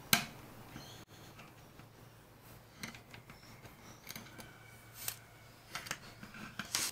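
Faint, scattered small metal clicks and taps as an Allen hex key turns tiny grub screws into the steel flat bars of a Kreg Straight Edge Guide, with a slightly louder tap near the end.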